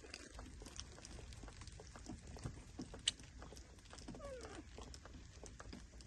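Faint scattered clicks and handling sounds as a baby monkey is bathed in a plastic basin, with one sharp click about three seconds in. A baby monkey gives a short falling squeak about four seconds in.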